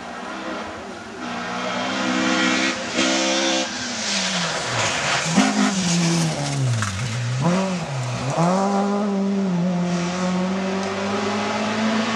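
Rally car engine, a Volvo 700-series saloon, revving up through the gears as it approaches. About five seconds in the revs drop sharply as it slows for the bend and passes close, dipping twice, then it picks up again and holds a steady note as it pulls away.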